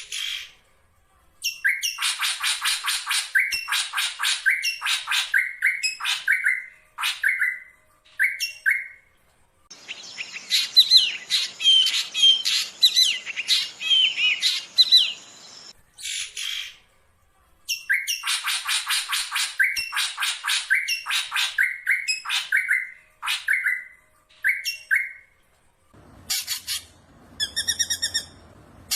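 Black drongo (srigunting) singing: fast runs of sharp repeated notes and harsh chatter, with a stretch of varied gliding whistles in the middle, broken by a few short pauses.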